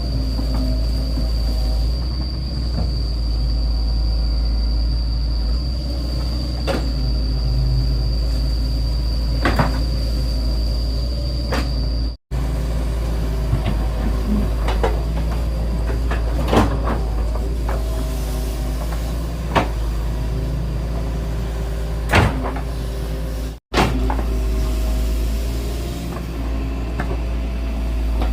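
Excavator's diesel engine running steadily under load, with scattered clanks and knocks from the machine at work and a steady high whine over about the first twelve seconds.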